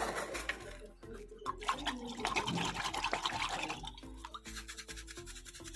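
Sticky slime being squished and worked by hand: a run of small wet clicks and crackles, busiest in the middle and thinning out near the end.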